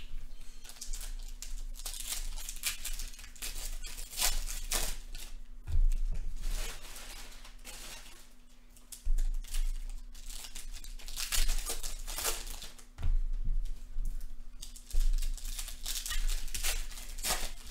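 Trading-card pack wrappers being torn open and crinkled, with cards rustled and shuffled in the hands, in irregular bursts. A few dull bumps come through as cards are set down on the stack.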